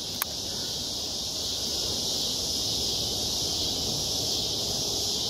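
Steady, high-pitched chorus of insects, with a low rumble of wind-like noise underneath and a single small click near the start.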